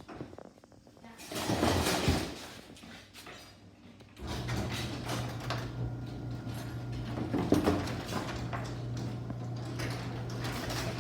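Craftsman 1.5 horsepower garage door opener starting up about four seconds in and running with a steady motor hum as it drives the door closed. A short burst of noise comes a couple of seconds before the motor starts.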